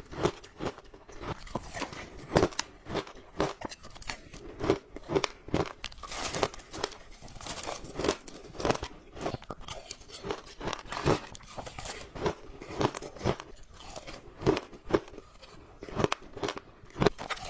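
Ice being bitten and chewed close to the microphone: a steady run of sharp, crunchy bites, roughly two a second.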